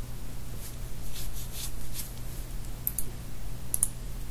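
Irregular clicks of a computer keyboard and mouse being worked, over a steady low electrical hum.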